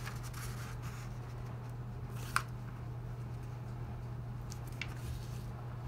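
Sheet of origami paper being folded in half and creased flat by hand: soft rustling with one sharper paper crackle about two seconds in, over a steady low hum.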